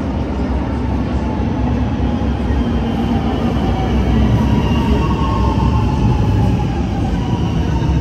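Milan Metro Leonardo electric train pulling into the station: a steady rumble of wheels and running gear that grows gradually louder, with a faint whine that drifts slightly lower in the second half as it slows.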